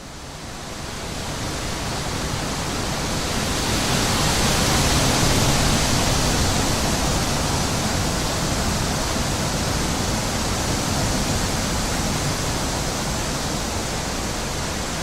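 A steady rushing noise that swells over the first few seconds and then holds even.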